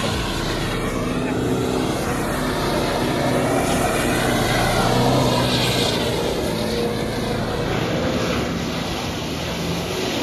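Toyota Fortuner SUV's engine revving up and down as it drives through mud, heard from a distance, over a steady rush of noise.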